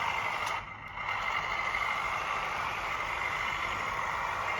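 Drive motors and gearboxes of a 1/14-scale LESU RC wheeled skid-steer loader running steadily as it spins in place, with a brief dip just under a second in.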